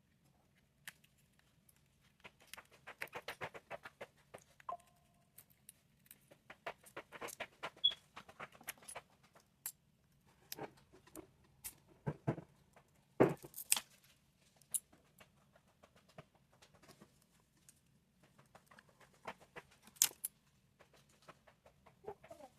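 Light clicks, taps and scrapes of small hand tools working on a phone's body and back glass. There is a quick run of rapid clicks about three seconds in and a few sharper knocks around the middle, over a faint steady low hum.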